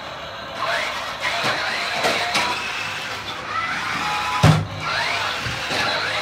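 Toy RC off-road truck driving and clambering over a pipe on carpet, its small electric drive motors whirring while its built-in electronic sound effects play repeated sweeping chirps. A loud thump about four and a half seconds in as the truck knocks against the pipe.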